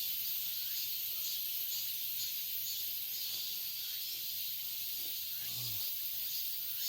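Cicadas calling: a steady high-pitched hiss with a faint pulsing in it. A brief low grunt from a man comes about five and a half seconds in.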